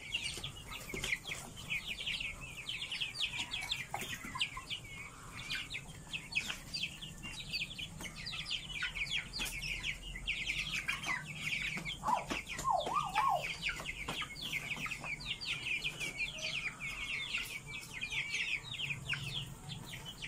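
A flock of young chickens peeping and cheeping nonstop in a high pitch as they crowd around a hand holding out food.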